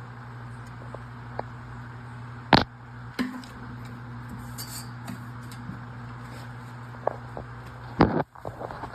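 A few sharp knocks and clicks of handling, the loudest about two and a half seconds in and another strong one about eight seconds in, over a steady low hum.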